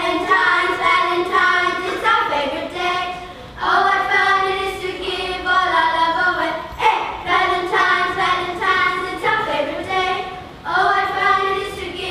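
A group of children singing together in held, stepping notes, in phrases of a few seconds with short breaks between them.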